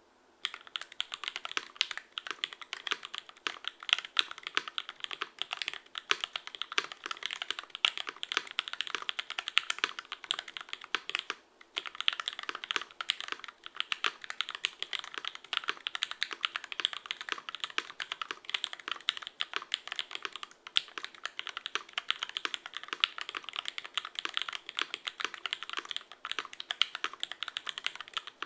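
Continuous fast typing on a mechanical keyboard with lubed vintage Cherry MX Black linear switches on an aluminum plate with no foam: a rapid run of keystroke clacks, pausing briefly about a third of the way through.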